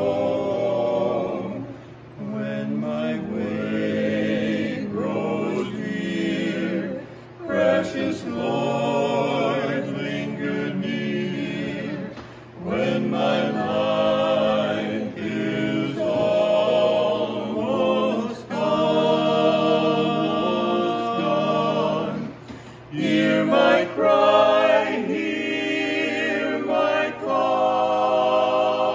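Mixed vocal quartet, one woman and three men, singing a slow gospel hymn in harmony without instruments, in long phrases with short breaks between them.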